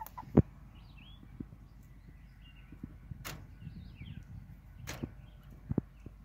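Backyard hens in a wire run, mostly quiet: a few soft clucks near the start and end and faint high chirps. Several sharp taps, the loudest about half a second in.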